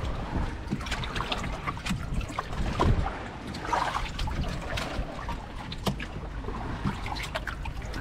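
Water sloshing and splashing in a wooden boat's flooded fish hold as live fish are grabbed out by hand, with scattered sharp knocks against the hull.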